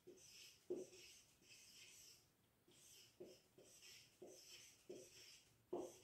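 Faint scratching of a felt-tip marker writing on a whiteboard: a run of short hissy strokes with a few brief squeaks.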